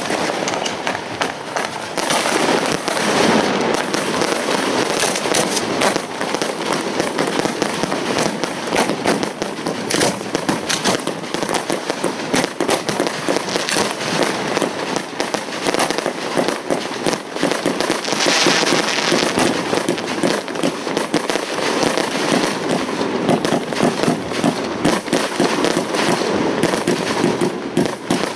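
Hand-fired fireworks going off at close range from racks of mortar tubes: a dense, unbroken stream of pops, bangs and crackling.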